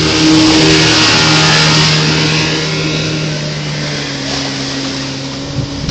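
An outboard boat engine runs steadily at planing speed, under the loud rush of water and wind as the boats cross open water. The sound eases off gradually, and the engine hum drops away just before the end.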